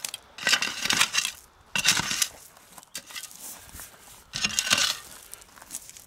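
Metal spade scraping and shovelling loose gravel off a buried drain cover: stones crunching and rattling in three short bursts.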